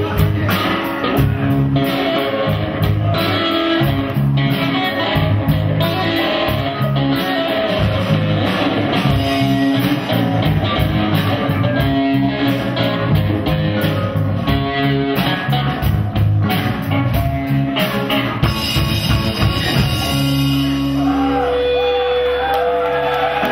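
Live rock band playing loudly, with electric guitar, bass guitar and drums. About twenty seconds in the drumming stops and the instruments hold a final ringing chord.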